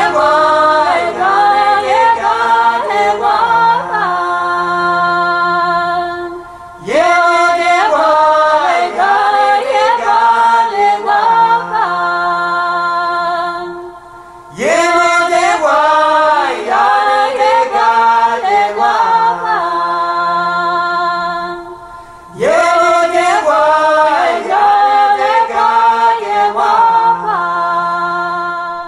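A cappella vocal ensemble singing in close harmony, with sustained chords and no instruments. The music comes in four phrases of about seven seconds each, the same shape repeated, with a brief drop in level between phrases.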